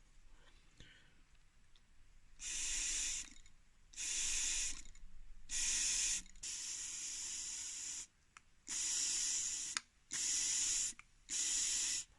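Hissing spray in seven short bursts, each about half a second to a second long, with one longer, softer burst in the middle.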